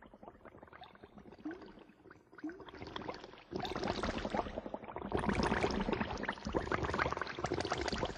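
Credits soundtrack of dense crackling and bubbling noise like liquid, sparse and quiet at first, then thicker and louder about three and a half seconds in.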